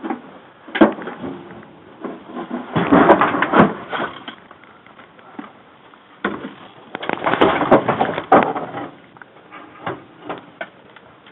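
Handling noise from a body-worn camera: clothing and gear rustling and scraping against it, with knocks. A sharp knock comes about a second in, then two longer bouts of scraping and knocking, about three and seven seconds in.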